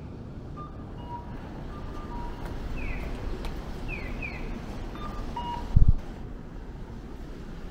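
Steady rumble of road traffic on a city street, with short high falling chirps, often in pairs, every second or so and a few brief thin beeps. A sharp low thump about six seconds in is the loudest moment.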